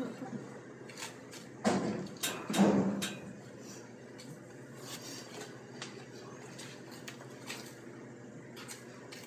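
Knife cutting through a beef round along a muscle seam, with scattered small clicks and scrapes. A few louder handling sounds come about two to three seconds in.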